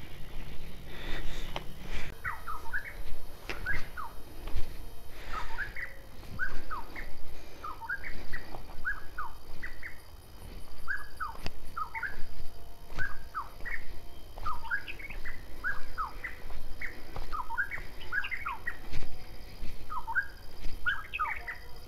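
An animal calling over and over in short, falling, whistle-like notes, often in pairs, two or three a second, from about two seconds in. Footsteps crunch on the rocky trail underneath.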